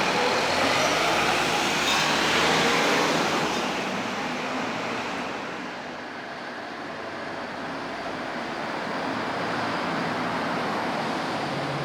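Road traffic on a street: a motor vehicle passing close in the first few seconds with a low rumble, fading by the middle, then the general traffic sound builds a little again.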